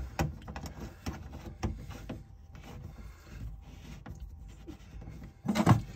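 Small clicks and rubbing of a plastic tailpiece slip nut being threaded and hand-tightened onto the bottom of a stainless sink basket-strainer drain, with a brief louder noise near the end.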